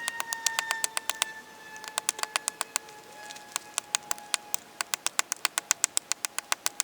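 Axe strikes on a tree trunk, sped up eightfold into a fast clatter of sharp clicks, about seven a second, in runs broken by two short pauses. A faint thin tone slides slowly downward underneath.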